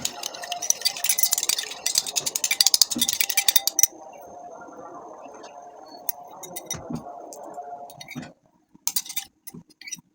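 A spoon clinking and scraping rapidly against a glass bowl while stirring, for about four seconds. Then it goes quieter with only a few clinks, and a short burst of clinking comes back near the end.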